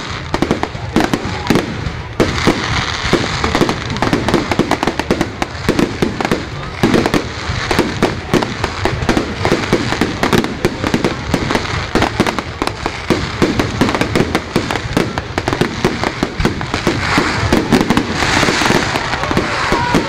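Fireworks display: a dense, continuous barrage of bangs and crackles overlapping without pause.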